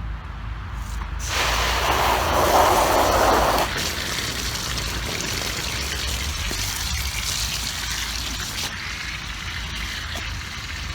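Water running into a dog pool being filled. It starts with a loud gush about a second in, then settles into a steady splashing rush.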